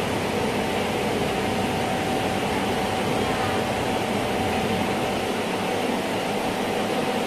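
Steady machine blowing noise with a faint constant hum. The low rumble drops away about five seconds in.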